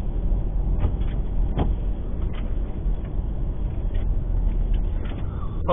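Steady road and engine noise heard inside a car driving on a wet highway, with a few faint ticks.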